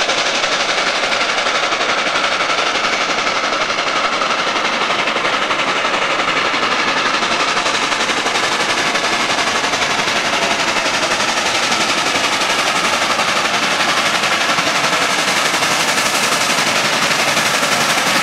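Chinese QJ-class 2-10-2 steam locomotive working hard under load: a rapid, steady beat of exhaust chuffs from the stack, growing slightly louder as the engine approaches.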